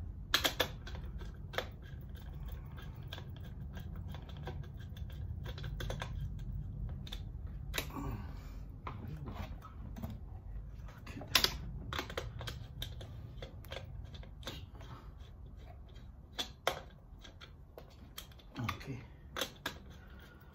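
Irregular small clicks and taps of hands and a wire working the terminals of a motor-control panel's contactor and terminal blocks, with a few sharper clicks, over a steady low hum.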